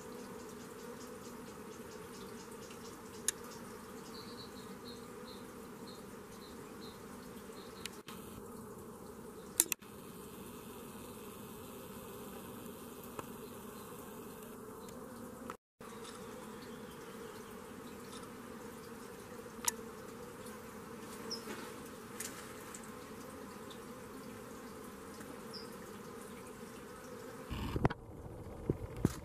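Steady buzzing of insects. A run of about eight short high pips comes about four seconds in. A few sharp clicks fall through the middle, and louder knocks come near the end.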